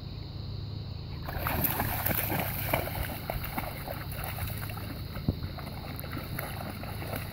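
Golden retriever wading and splashing through shallow water, a quick run of sloshing splashes starting about a second in and going on more lightly after that.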